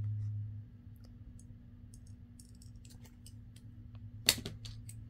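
Faint clicks and taps of paper pieces and craft tools being handled on a cutting mat, with one sharp click about four seconds in.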